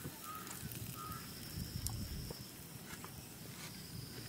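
Faint rural outdoor background with a few short high chirps in the first second and a thin, high whistling tone that comes and goes.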